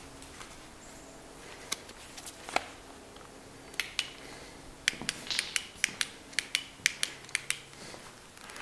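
Footsteps crunching and scraping over grit and broken debris on a concrete floor: a few scattered crunches at first, then a quick, steady run of sharp crunches from about five seconds in.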